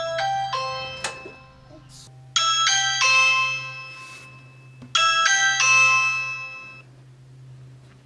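Electronic doorbell chimes from a Ring video doorbell and its phone alert. There is a short stepped run of chime notes at the start, then the same multi-note ding-dong chime twice, about two and a half seconds apart, each ringing out over a couple of seconds. A low steady hum runs underneath.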